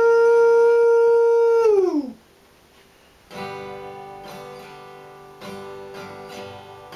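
A man's voice holds a long 'woooo' howl in imitation of a train whistle, then slides down in pitch and stops about two seconds in. After a second of quiet, an acoustic guitar starts playing a little past three seconds in.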